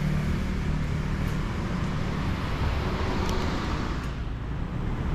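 Road traffic on a busy street: vehicle engines and tyre noise going by, dying down a little about four seconds in.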